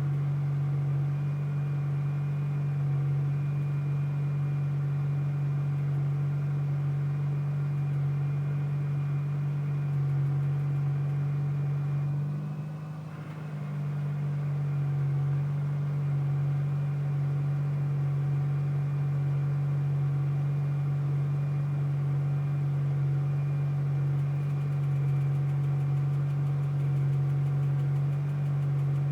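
A steady engine hum holding one pitch, dipping briefly about halfway through before settling back to the same note.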